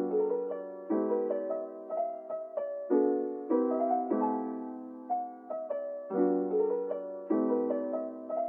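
Background piano music: soft chords and single notes, a new chord about every second or so.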